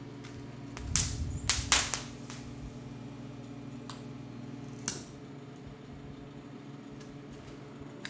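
Arc welder humming steadily as it drives about 270 amps through untwisted 14-gauge wires in a wire-nut (Marr) connector, grossly overloading them. Sharp cracks and pops break out as the wires and connector overheat into smoke and flame, the loudest cluster in the first two seconds, with single pops near 4 and 5 seconds.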